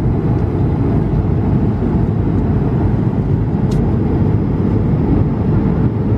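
Steady cabin roar of an Airbus A220-300 in flight: engine and airflow noise heard from an economy seat. There is a faint click about halfway through.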